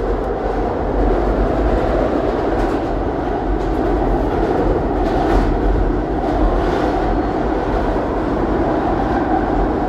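SEPTA Market-Frankford Line ADtranz M4 subway train running at speed through a tunnel, heard from inside the car: a steady, loud rumble of wheels on rail, with a few faint clicks in the middle.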